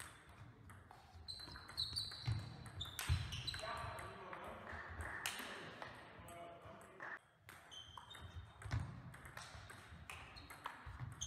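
Table tennis rally: the ball clicking off the paddles and the table in quick, irregular knocks.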